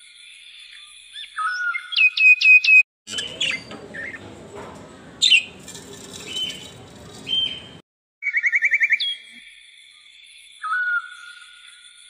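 Birds chirping and whistling in a repeating pattern, as in a looped birdsong background track. In the middle a rougher, noisier stretch with more chirps comes in, then cuts off abruptly and gives way to a fast trill before the chirping pattern returns.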